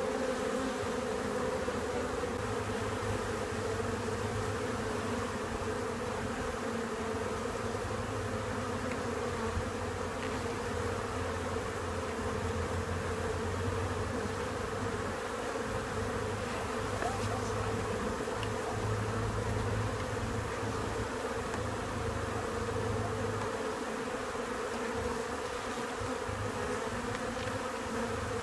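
Honeybees of an opened nucleus colony buzzing in a steady hum.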